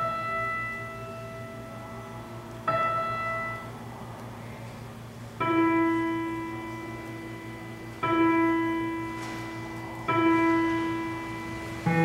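Synthesizer keyboard played one note at a time: five single sustained notes, each struck and fading over about two seconds, spaced two to three seconds apart. The first two sit higher; the last three are a repeated lower note. A steady low hum runs underneath.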